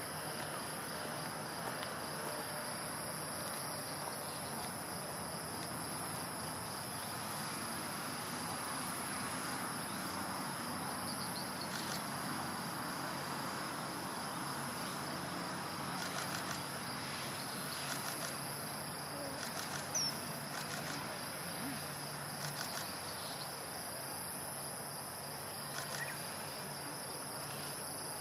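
Steady, high-pitched insect trilling over an even outdoor hiss, with a few faint clicks and one short high whistle about twenty seconds in.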